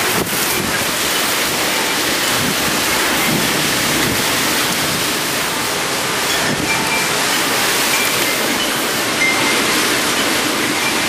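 Heavy rain pouring down in a severe thunderstorm with strong wind, a loud, steady rush of noise.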